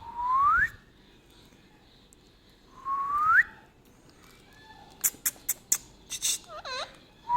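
Indian ringneck parakeet whistling: two rising whistled notes, one at the start and one about three seconds in. Near the end come a quick run of short, sharp calls and a string of fast chirps.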